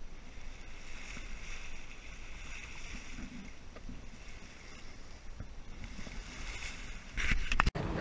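Water rushing along a sailboat's hull under sail in strong wind, swelling and fading with the waves, over a steady low rumble of wind on the microphone. A louder rush comes near the end and then breaks off abruptly.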